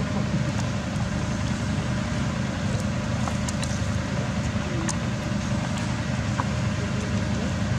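A steady low rumble with a few faint short ticks over it.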